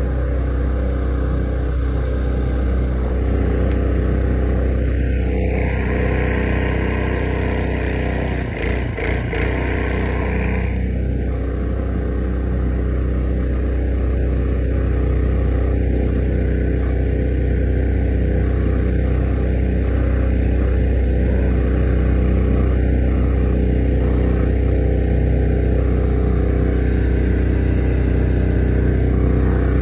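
Predator 212cc single-cylinder four-stroke engine driving a long tail mud motor, running steadily at speed. There is a brief disturbance with a short dip in level about nine seconds in.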